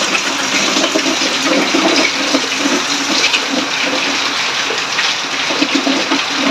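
Water swirling and sloshing steadily as laundry is washed, in a washing machine tub and in basins.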